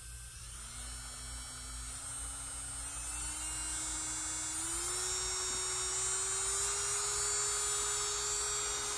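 Electric nail drill's motor whining as its speed is turned up: the pitch climbs in small steps over about five seconds, then holds steady at top speed, around 30,000 RPM.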